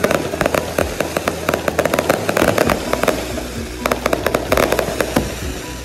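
Aerial fireworks going off overhead: a dense, rapid crackling and popping from crackle-effect shells, with louder bangs scattered through, over a steady low rumble.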